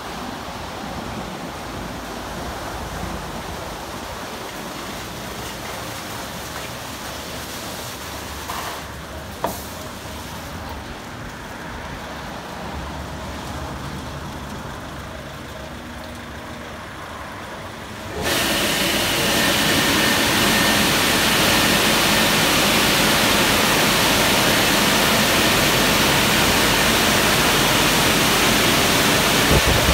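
Aquarama Stargate S4 automatic rollover car wash working over a car: a steady hum of the machine and spray, then a little past halfway a much louder steady rushing starts suddenly and carries on.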